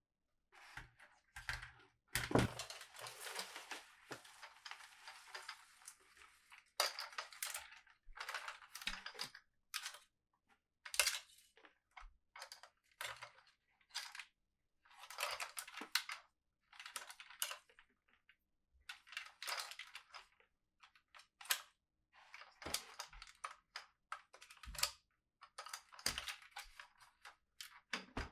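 Hands unpacking toys: crinkling and rustling of plastic packaging in short irregular bursts, with small clicks and taps. One longer continuous rustle runs from about two to seven seconds in.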